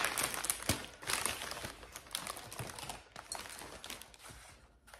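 Packaging wrap crinkling and rustling as a small item is unwrapped by hand, busiest in the first two seconds and thinning out after that.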